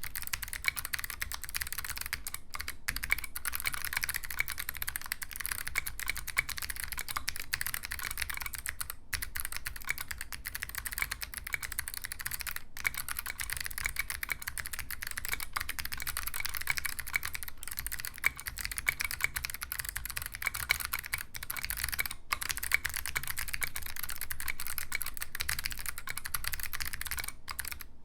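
Fast, continuous typing on a handwired 60% mechanical keyboard: a steady stream of rapid key clicks, broken by a few brief pauses.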